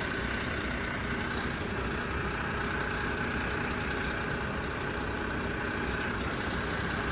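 An engine idling steadily, a constant hum with no change in pitch or level.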